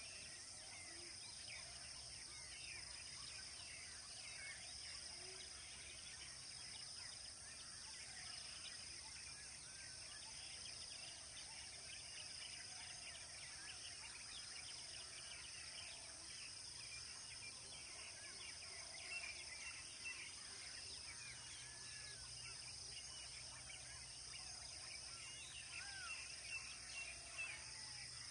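Faint ambience of many wild birds chirping and calling, over a steady high-pitched insect drone; a few slightly louder calls stand out near the end.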